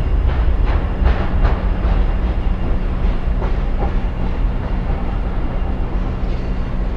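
Freight train rolling along the track: a heavy, steady low rumble, with several sharp knocks in the first couple of seconds and two more about three and a half seconds in.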